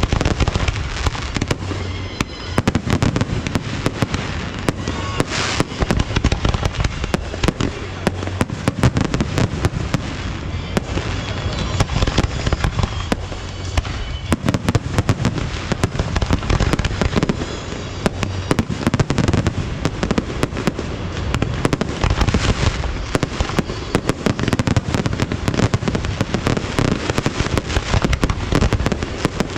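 Fireworks display in full swing: a dense, continuous barrage of bangs and crackles with no pause.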